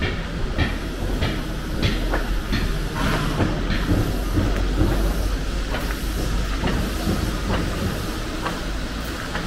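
Footsteps on a wet gravel-and-mud track, about three steps every two seconds, over a steady low hum.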